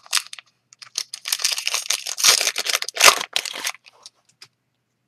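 Trading cards and packaging being handled: irregular rustling and crinkling, loudest about two and three seconds in.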